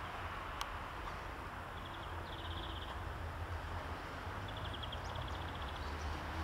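Fiat Doblo 1.9 JTD Multijet four-cylinder diesel idling, a low steady rumble that grows a little stronger near the end. Short bursts of bird chirping come and go above it.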